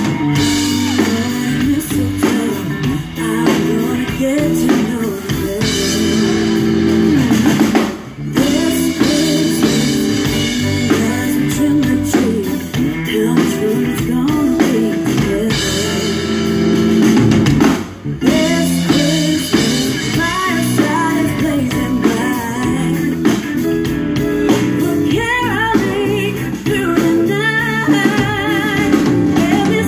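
Live band playing through a stage PA: a woman singing over a drum kit, guitar and keyboard.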